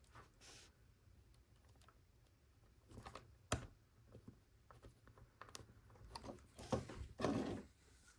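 Small plastic LEGO bricks being handled and pressed together: scattered light clicks, one sharp click about three and a half seconds in, and a short rustle near the end.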